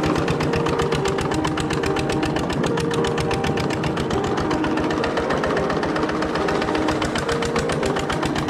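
The single-cylinder S301D petrol engine of a 1977 Esiok S7 garden tractor, running steadily at idle with an even, rapid knocking beat of about twelve a second.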